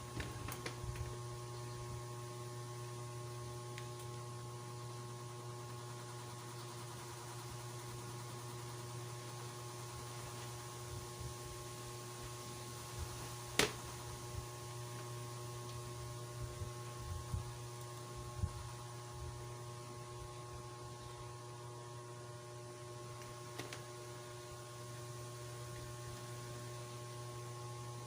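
Steady low electrical hum, with a few light clicks, the sharpest about halfway through.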